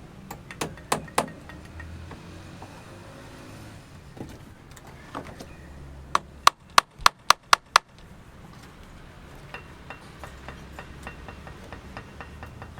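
Hammer blows: a few knocks, then a quick run of about seven hard strikes at roughly four a second halfway through, followed by lighter tapping near the end.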